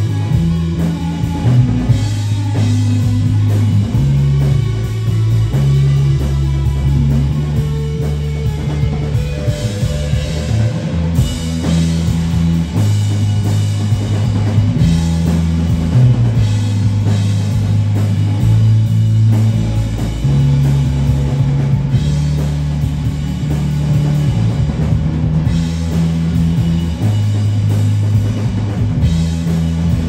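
Live rock band playing an instrumental passage: two electric guitars over a full drum kit, with a low line stepping between notes every second or two.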